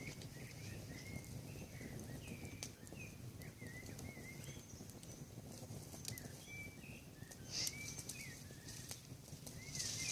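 Wood campfire burning: sharp crackles and pops over a low rumble, with many short high squeaks throughout and a louder pop about three-quarters of the way through.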